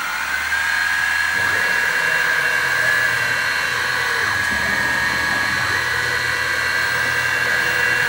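Mini mill spindle motor finishing its spin-up, its whine rising and then holding steady at a high pitch. A lower hum joins about a second in and runs under it.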